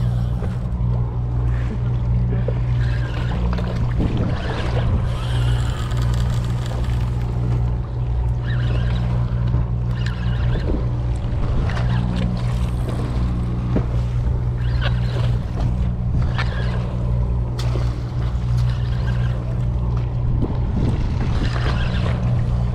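Boat engine running steadily in a low hum, with wind and water noise over it and short clicking sounds now and then.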